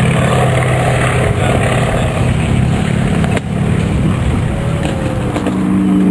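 Percival Pembroke's twin Alvis Leonides radial piston engines droning steadily as the aircraft flies its display. The pitch falls slowly near the middle as it passes, after a brief break about three and a half seconds in.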